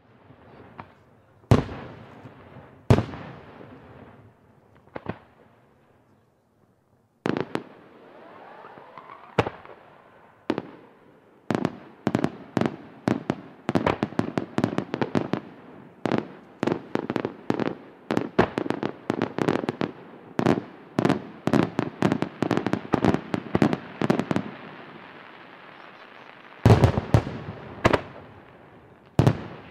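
Aerial firework shells bursting with sharp bangs: a few spaced bangs, a second or so of near silence, then a rapid run of many bursts close together, easing off before three more big bangs near the end.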